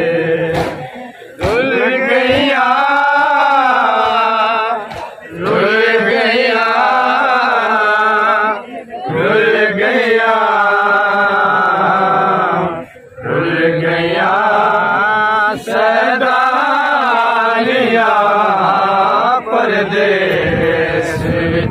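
Men's voices chanting a Shia noha, a mourning lament, in long drawn-out sung phrases. There is a brief pause for breath about every four seconds.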